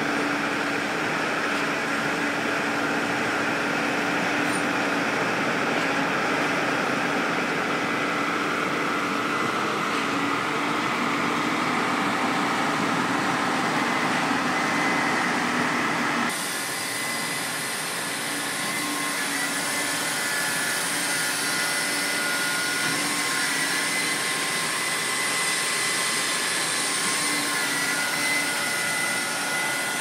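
Concrete boom pump truck's diesel engine and pump running steadily at working speed. About halfway through, the sound changes abruptly to a thinner, hissier machine noise with a steady high tone.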